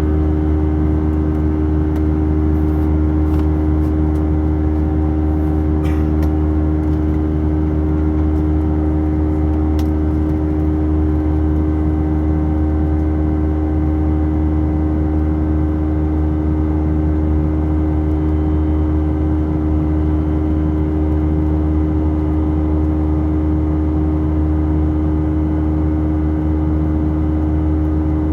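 Airbus A319 jet engines and airflow heard inside the cabin during the climb after takeoff: a loud, steady drone with a low hum and a couple of steady tones, with a few faint ticks in the first ten seconds or so.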